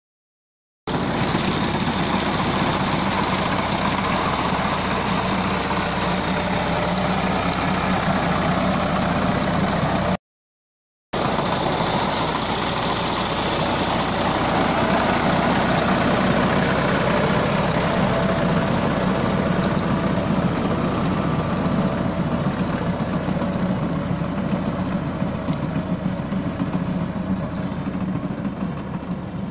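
Massey Ferguson 260 Turbo tractor's diesel engine running steadily while working a tractor-mounted reaper cutting wheat. The sound breaks off twice for under a second.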